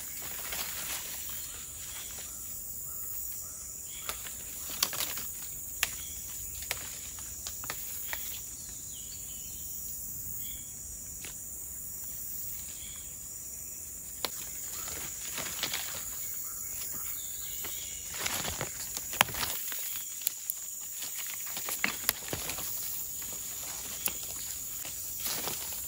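Scattered footsteps and rustling in undergrowth, with a few sharp snaps, over a steady high-pitched insect drone.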